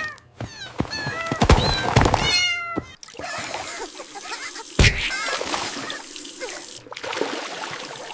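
Kittens meowing: a quick run of high, short meows over the first three seconds, the last one longer. After that comes a hissy, noisy stretch with one sharp knock about five seconds in.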